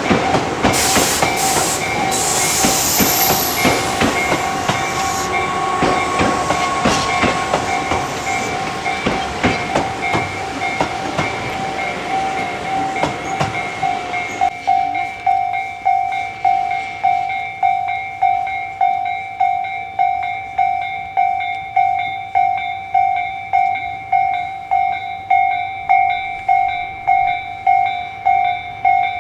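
Tobu Railway train passing over a level crossing, its wheels clattering over the rail joints, while the crossing's warning bell rings steadily. About halfway through, the train has gone by and the bell rings on alone, about three strokes every two seconds: the crossing stays closed for the next train.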